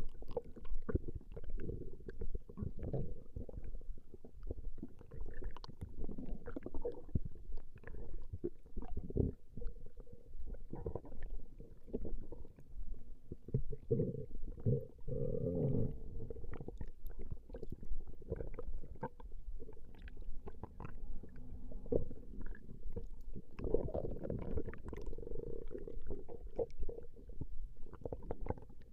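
A woman's stomach growling: low, irregular gurgles and pops, with longer drawn-out gurgles about halfway through and again near the end.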